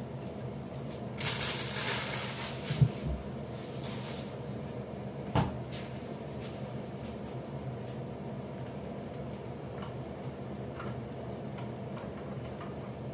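Kitchen handling noises over a steady low hum: a brief rustling hiss about a second in, a low thump near the three-second mark, and a single sharp knock a couple of seconds later.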